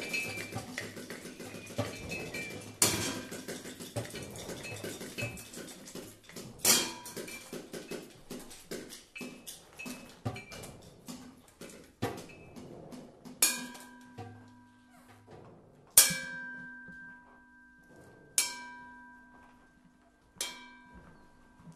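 Experimental percussion: a dense patter of small clicks and taps with a sharp struck hit every few seconds. In the second half the clicks thin out and each hit leaves steady ringing tones that slowly fade.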